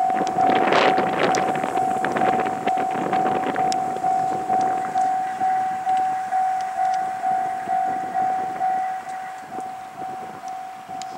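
Japanese railway level-crossing warning bell ringing, a repeating electronic clang about two and a half times a second. For the first four seconds or so a train rumbles and clatters over the rails at the crossing, then fades away, leaving the bell ringing alone.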